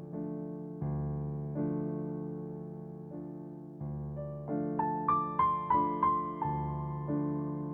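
Calm background piano music: slow chords that ring and fade, with a short run of quicker high melody notes in the middle.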